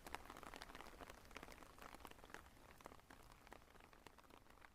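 Faint rain: a soft, steady hiss with many scattered, irregular drop ticks.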